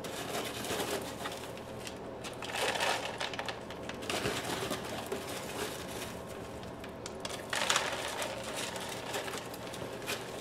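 Coarse bark-and-perlite orchid potting mix rustling and crunching as it is scooped by hand and worked into a plastic pot, with louder scraping surges about two and a half seconds in and again near eight seconds.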